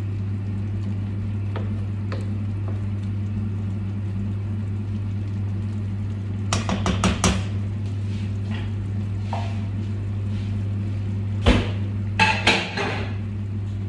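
Wooden spoon stirring tomato sauce in a stainless steel frying pan over a steady low hum. Two clusters of sharp knocks of the spoon against the pan come about halfway through and again near the end.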